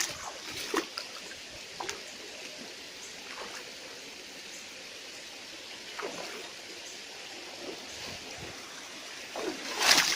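Shallow river water trickling, with a few small splashes and one louder splash near the end.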